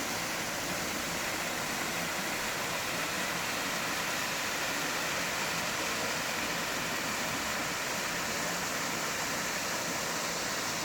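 Artificial waterfall: water falling and splashing in a steady rush.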